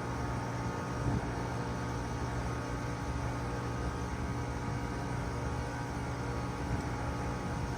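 Bard 3-ton wall-hung heat pump running through its defrost cycle: a steady hum with an even hiss over it, unchanging throughout.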